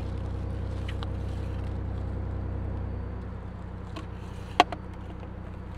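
An engine idling steadily, easing a little about three seconds in. A sharp click about four and a half seconds in, with fainter clicks around it, as plastic tube sections of the pool-float motor's shaft are handled and fitted together.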